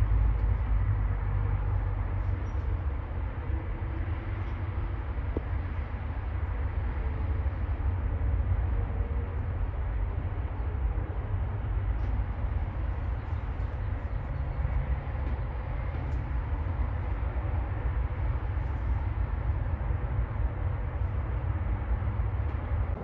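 Steady wind rumbling on the microphone, with a hiss over a heavy low rumble.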